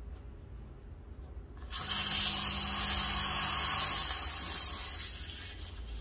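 Steam wand of a Milesto Elaine M3 (EM19-M3) espresso machine purging into a cloth after steaming milk: a loud hiss of steam starts suddenly about two seconds in, with a low steady hum under it at first, and tapers off near the end.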